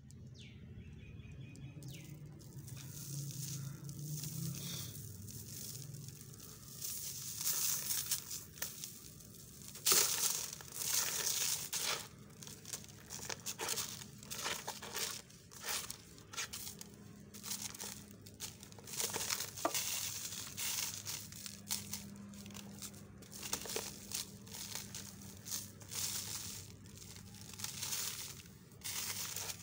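Dry, grainy sand-cement chunks crumbled by hand, the crumbs and powder trickling onto a paper liner in a plastic basin in irregular crackly, hissing runs. Near the start the paper liner crinkles as it is smoothed down.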